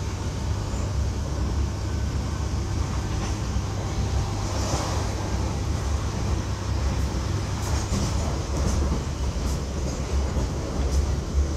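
Inside a moving Class 323 electric multiple unit carriage: a steady low rumble of the train running on the rails, with a few faint light clicks of interior rattles.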